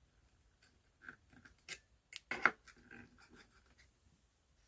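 Light handling noises of small hardware against wood: scattered clicks, taps and scrapes, with a sharper cluster of knocks about two and a half seconds in.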